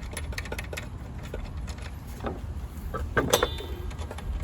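Light metallic clicks and clinks as the wrench and blade are worked off a gas concrete cut-off saw, with a louder clink and a brief ring about three seconds in, over a low steady rumble.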